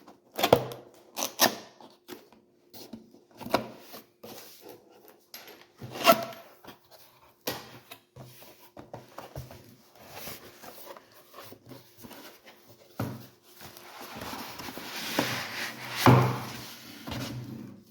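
Cardboard box and packaging being handled during unboxing: scattered knocks and taps as the box is opened and its contents lifted, with a few seconds of rustling packaging near the end and a sharp knock just before it stops.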